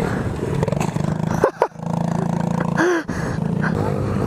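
Small dirt bike engine running with a steady note, cutting out briefly about a second and a half in and again just before three seconds, with a quick rev up and down between.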